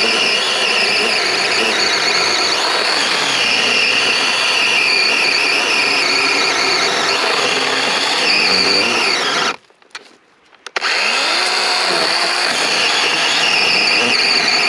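DeWalt 12-inch cordless battery chainsaw cutting through a log: a steady high whine from the motor and chain. It stops for about a second roughly ten seconds in, then starts up again and keeps cutting.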